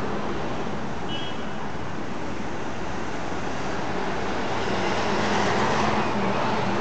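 City traffic heard from inside a bus: a steady engine hum and road noise, swelling for a couple of seconds as a large coach passes close alongside. A brief high tone sounds about a second in.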